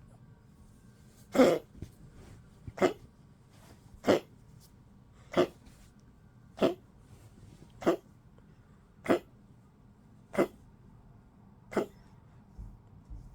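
A 15-year-old Poodle giving short coughs, nine in a steady series about a second and a quarter apart, a sign of an elderly dog that is weak and unwell.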